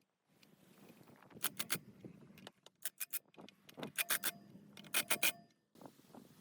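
Metal pump parts and tools being handled: sharp metallic clicks and clinks in quick groups of two or three, roughly once a second, some ringing briefly, over a low scraping and rubbing.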